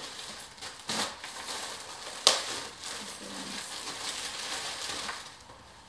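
Clear plastic clothing bag crinkling and rustling as it is handled and a garment is pulled out, with a sharp louder crackle a little over two seconds in.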